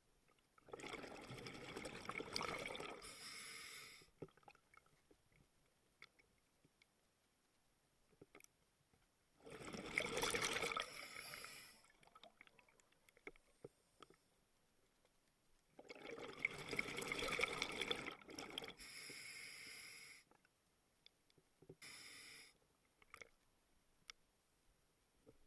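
Scuba diver's exhaled breath bubbling out of the regulator underwater: three rushing bubble bursts of about three seconds each, some seven seconds apart, and a short fourth burst near the end, with faint clicks in the quiet inhalations between.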